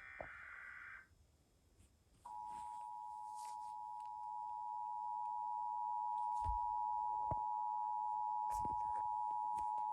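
Emergency Alert System broadcast: the last of the SAME digital header bursts, a one-second warbling data screech, then after about a second's pause the EAS two-tone attention signal, two steady tones near 853 and 960 Hz sounded together, growing slightly louder about halfway. The signal heads a National Weather Service severe thunderstorm warning.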